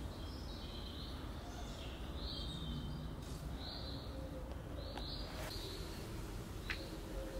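A small bird chirping repeatedly in short calls, roughly once a second, over a steady low outdoor rumble.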